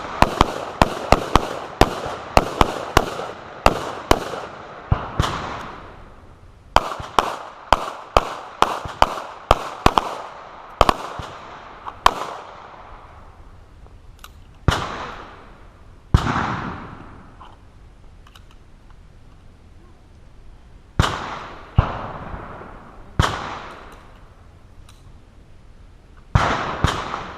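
Gunfire from several shooters with carbines and pistols: rapid overlapping shots for about the first twelve seconds, with a short break near the middle of that run, then scattered single shots every few seconds. Each shot has a short echo.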